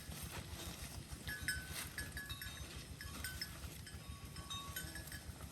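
Cattle chewing and crunching hay: a steady run of short crunches and clicks, with short high pips repeating through it.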